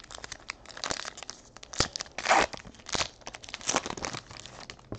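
A trading card pack's wrapper being torn open and crinkled by hand: a run of crackles and rips, with a few louder tears about two to four seconds in.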